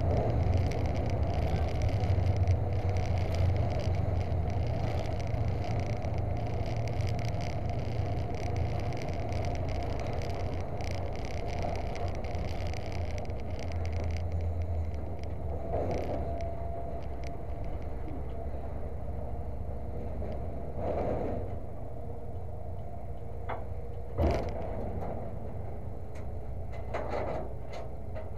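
A vehicle engine idling, heard from inside a demolition derby truck's cab as a steady low rumble. About halfway through it drops quieter, and a few knocks follow, the sharpest one late on.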